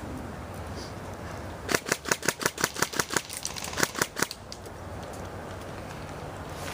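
Airsoft gun firing a rapid string of sharp shots, about seven a second for some two and a half seconds, starting a little under two seconds in.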